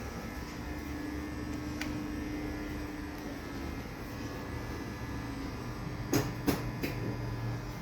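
UNIT elevator running, a steady mechanical hum with a tone that steps down slightly in pitch about three seconds in, then three sharp clicks near the end.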